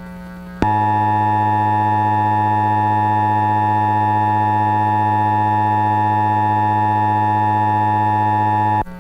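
Emergency Alert System two-tone attention signal: a loud, harsh, steady dual tone that starts about half a second in, holds for about eight seconds and cuts off suddenly. A low steady hum is heard before and after it.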